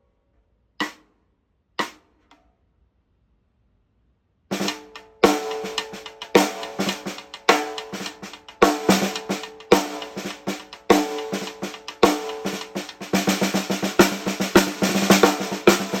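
TAMA Starclassic walnut/birch 14x6.5 snare drum struck: two single hits about a second apart, a pause, then continuous playing from about four and a half seconds in, with the drum's ring under each stroke and denser, faster strokes near the end.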